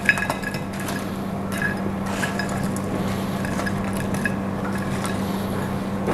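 Wooden spatula scraping and pushing fried battered squid out of a wok onto a plate, with a few light clicks and soft scrapes scattered through it, over a steady low hum.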